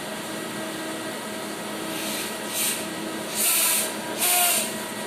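Steady hum of a CNC lathe standing by, with a few faint steady tones in it. Three short bursts of hiss cut in past the middle, the last two each about half a second long and the loudest sounds here.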